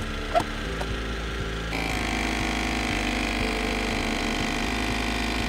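Nespresso capsule espresso machine: a sharp click, then its pump starts just under two seconds in and runs with a steady buzzing hum while it brews a shot of espresso.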